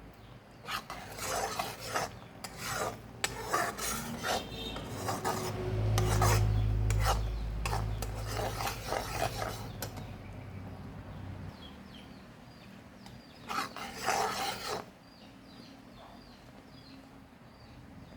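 A ladle scrapes the bottom of a pan as it stirs jaggery syrup that is being cooked down to the lump stage for peanut chikki. It comes as bursts of scraping strokes with pauses between them, and a low rumble in the middle.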